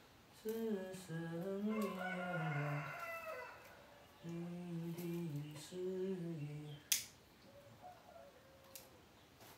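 A man's voice humming a tune in two short phrases, the notes stepping up and down, followed by a sharp click about seven seconds in.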